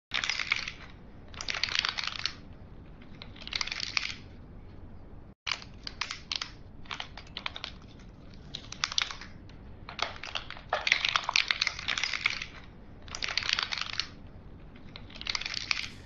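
AI-generated foley of wooden abacus beads clicking and clattering together, in irregular bursts of rapid clicks about a second long over a steady low hiss. There is a very brief dropout about five seconds in. The bead sound is all over the place.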